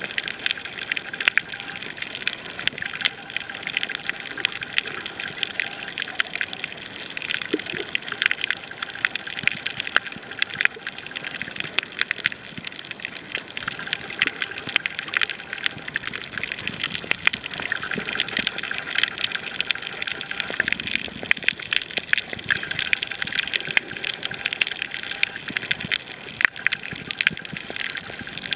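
Coral reef heard underwater: a dense, unbroken crackle of countless tiny clicks, the typical sound of snapping shrimp on a reef.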